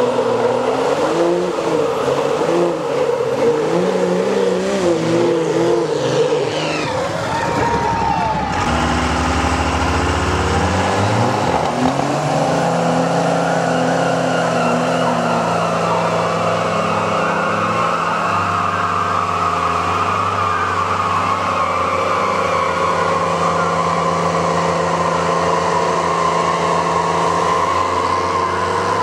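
Pickup truck engines at full throttle under heavy load in a tug-of-war, with tyres spinning. The engine note rises and falls through the first part. From about twelve seconds in it holds steady as the trucks strain against each other.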